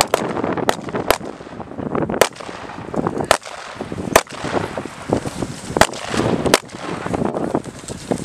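M4 rifle shots fired singly, about eight sharp cracks at uneven intervals of roughly one to one and a half seconds.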